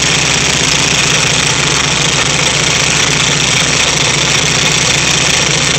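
Freshly rebuilt VW 1600 cc single-port air-cooled flat-four engine running steadily on its first run after the rebuild.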